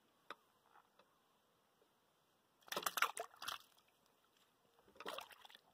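Shallow river water splashing and sloshing in two short bursts, one about three seconds in and a shorter one near the end.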